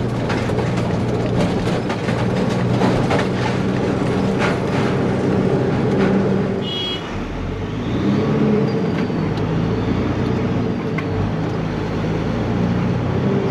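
Diesel engine of a Peterbilt 379 semi truck running steadily, with clicks and rattles over it. About halfway through, the engine's pitch drops briefly and then comes back up.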